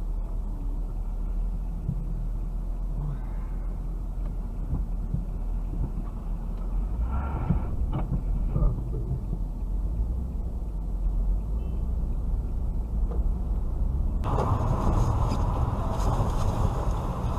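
Dashcam audio from inside a stopped car: a steady low rumble of engine and traffic, with a couple of sharp knocks about eight seconds in. About fourteen seconds in it cuts to a different dashcam recording of a car driving, with louder, hissier road and engine noise.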